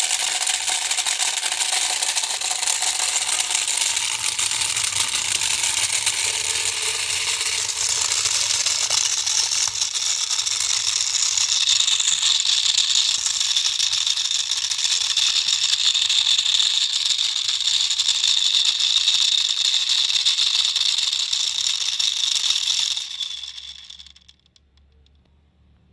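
Small electric toy motor, that of a toy vortex washing machine, run at high voltage: a loud, continuous high rattling buzz that grows stronger about halfway through, then dies away about 23 seconds in.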